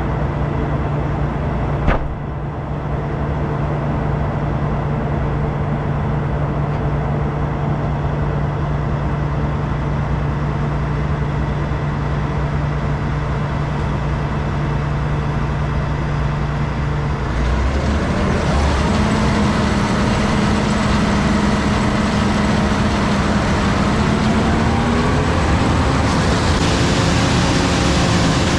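Combine harvester running with a steady engine drone, with a single sharp click about two seconds in. About seventeen seconds in, the engine note steps up and the sound becomes fuller and hissier as the machine picks up speed.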